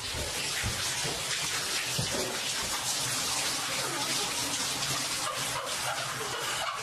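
Water running from a bathtub tap into the tub, a steady hiss that stops near the end.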